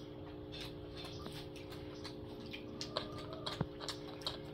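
Faint, irregular drips and ticks of water over a steady low hum, with a slightly louder click about three and a half seconds in.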